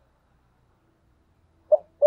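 A pause in a spotted dove's cooing, then near the end a single short note that opens its next phrase of coos.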